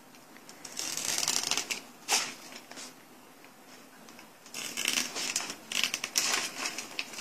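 Scissors cutting a stiff, light-sensitive stamp plate: crisp, rasping snips, in a spell about a second in with one sharp snip near two seconds, then a run of snips from about four and a half seconds on.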